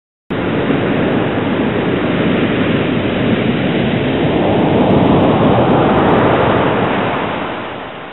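Rushing sea water of a boat's churning wake: a steady rush that starts suddenly, swells a little past the middle, then fades away near the end.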